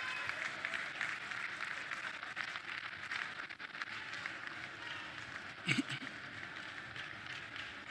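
Ambient noise of a large crowd in an open-air stadium, a steady murmur with scattered small clicks and claps. About three-quarters of the way through there is one short, loud sound close by.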